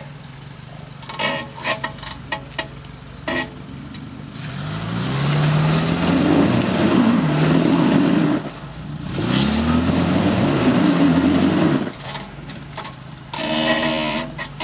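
Suzuki Samurai's engine revving hard twice under load as it climbs a rock step, the pitch rising each time, with a brief drop between the two revs.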